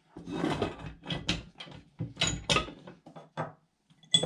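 Aluminium and steel trimmer-rack parts being handled and shifted on a work surface: a series of short scrapes and knocks, then a couple of sharp metallic clinks near the end.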